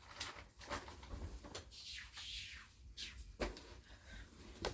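Faint household handling noises while tissues are being searched for: a few light knocks and clicks, with a soft rustling swish about two seconds in and a sharper knock a little later.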